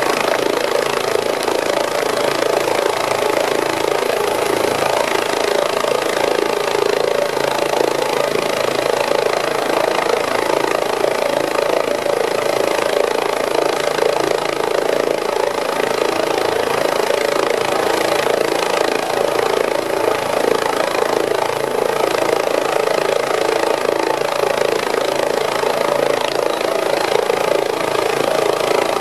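Medical helicopter running steadily at idle on the ground after landing, turbine and rotor noise.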